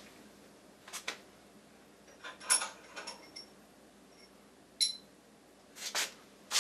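Scattered light clinks and knocks of small metal hardware parts being handled, with a sharp ringing metallic clink a little before five seconds in.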